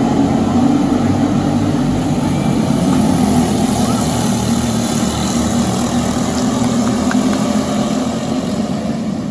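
Briggs & Stratton LO206 kart engines running, a loud steady drone that holds nearly the same pitch.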